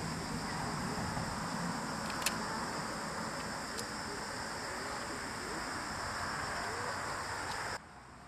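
Steady chorus of insects over outdoor hiss, with a few light clicks of chopsticks against a metal frying pan. Near the end the sound drops suddenly to a much quieter background.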